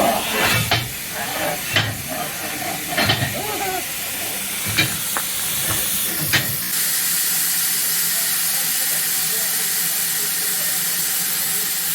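Steam locomotive hissing steam steadily, with several sharp metal clanks in the first half. After that only the even hiss is left.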